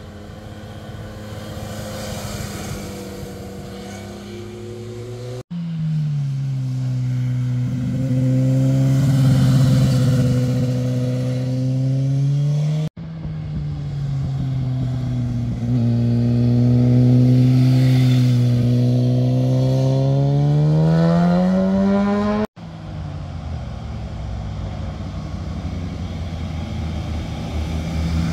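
Motorcycle engines passing through a hairpin bend one after another, in short clips joined by abrupt cuts. In each pass the engine note drops as the rider slows into the bend, then climbs as the bike accelerates out of it. The last clip has a lower, rougher engine hum.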